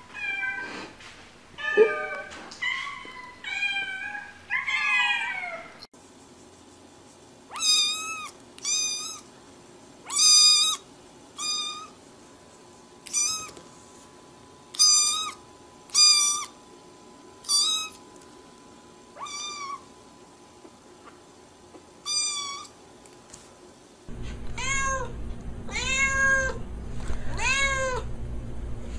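Cats meowing in three short clips: first several overlapping meows, then a black kitten's short, high-pitched meows, about ten of them spaced a second or two apart, then, near the end, a calico cat's lower meows about once a second over a steady low hum.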